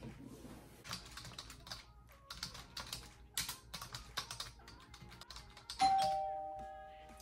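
Typing on a laptop keyboard, a scattered patter of key clicks. Near the end a doorbell chimes a two-note ding-dong, the second note lower, ringing and fading away.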